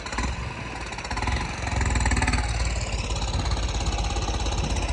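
Tractor diesel engine running under load, growing louder over the first two seconds and then holding steady with a rapid, even firing beat.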